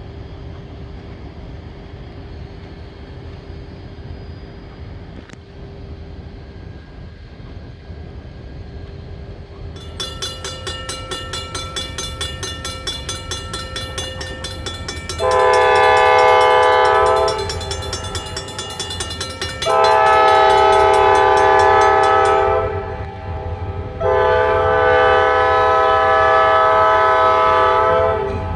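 Approaching EMD SD40-series diesel locomotives rumbling low, then sounding their multi-chime air horn in three blasts: a shorter one, then two long ones, the last about four seconds long. A rapid high ringing, the locomotive bell, starts about ten seconds in and runs under the first two blasts.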